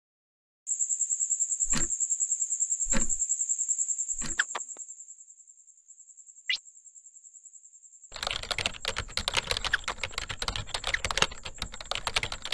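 A high pulsing cricket trill starts under a second in, with three soft thumps, and fades after a few seconds. From about eight seconds in, rapid typing on a laptop keyboard comes in, with the trill still faint beneath it.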